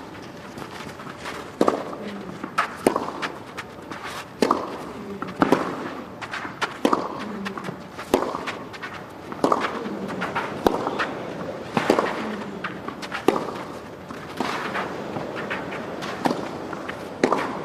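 Tennis balls struck back and forth with rackets in a long baseline rally on a clay court: about a dozen sharp racket hits, one every second and a half or so, with fainter ball bounces and footwork between them.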